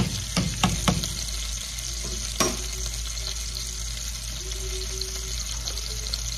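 Cream sauce sizzling in a pan on the stove as it is stirred. A utensil knocks against the pan a few times in the first second and once more about two and a half seconds in.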